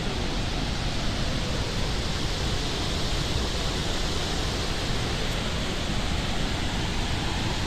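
Large waterfall in rainy-season flood, a steady, even rush of falling water.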